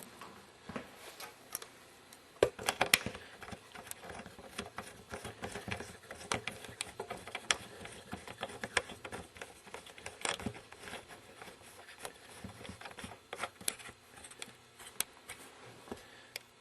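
Irregular light clicks and knocks of parts and tools being handled on a snow plow hydraulic pump, with a few sharper knocks standing out.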